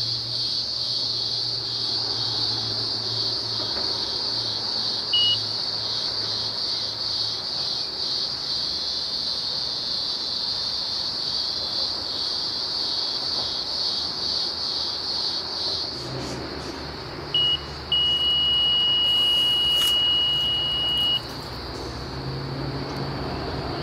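Electronic carp bite alarm: a single short beep about five seconds in, another near seventeen seconds, then one unbroken tone held for about three seconds. The unbroken tone is the sign of a run, a fish taking line.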